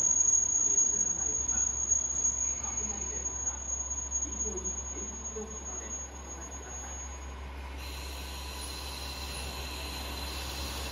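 Diesel railcar of the Ametsuchi tourist train braking into a platform, its brakes giving a steady high-pitched squeal that fades as it slows and stops about seven and a half seconds in, as the train comes to a halt. A steady hiss follows, over a low rumble.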